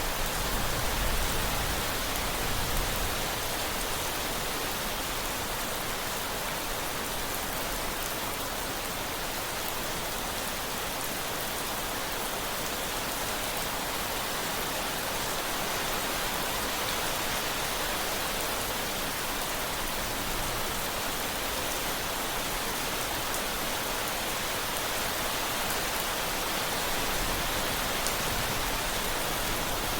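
Steady heavy rain: an even, unbroken hiss of drops falling on surfaces.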